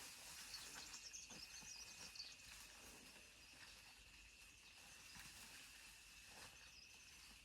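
Faint outdoor ambience: a steady high insect drone with scattered bird chirps and light rustling.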